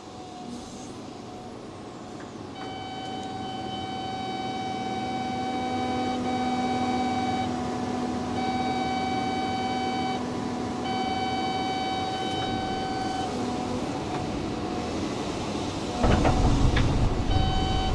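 Cat excavator engine and hydraulics working as the machine grades under automatic control, slowly growing louder, with the Cat Grade system's audible warning sounding as a steady tone in four stretches of one to five seconds each. About sixteen seconds in, the machine noise turns suddenly louder and deeper.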